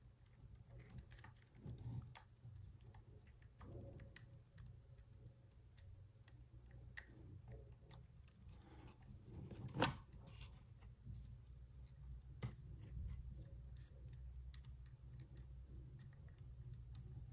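Faint small clicks and scrapes of fingers working the plastic parts of a DJI Mavic Air 2's landing-gear leg, easing out the light board and its wires, with one sharper click about ten seconds in, over a low steady hum.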